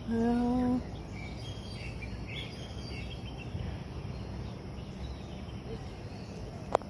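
Outdoor park ambience: a steady low background rumble with faint bird chirps, after a short held "ooh" from a woman's voice at the very start. A single sharp click near the end.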